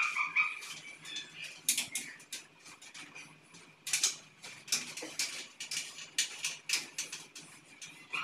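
Electrical wires being pulled by hand through conduit into a wall utility box. Irregular scraping, rustling and clicks come from the insulation rubbing against the pipe and the box edge.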